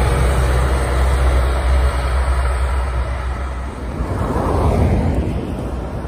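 Cars driving along a snow-covered street in a snowstorm, with a strong low rumble for the first few seconds that then falls away, leaving a steady noisy hiss.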